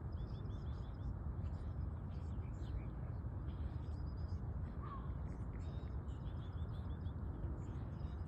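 Birds calling outdoors over a steady low rumble: a quick run of high chirps near the start and again later, and a single lower call about five seconds in.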